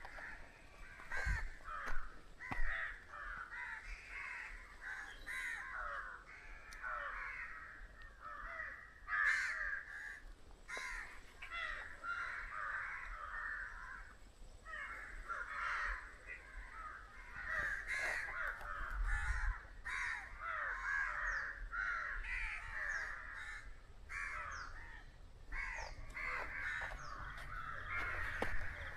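Many crows cawing, their harsh calls overlapping in a continuous chorus with only brief lulls.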